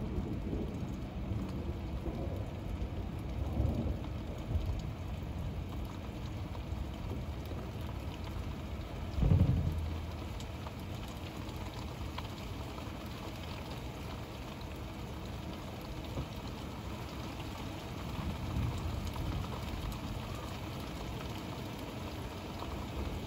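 Steady rain falling during a thunderstorm, with a short low rumble about nine seconds in, the loudest moment.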